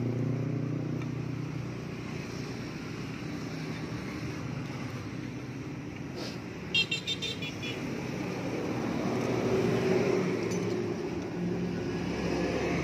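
Road traffic passing close by: a vehicle engine's hum that grows louder and fades again in the second half. About halfway through comes a brief, high metallic rattle.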